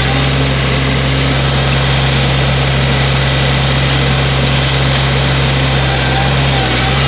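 Excavator's diesel engine running steadily with a constant low drone and no change in speed.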